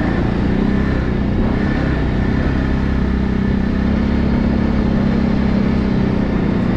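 ATV engine running at a steady pitch during a trail ride, with the rush of noise from the ride around it.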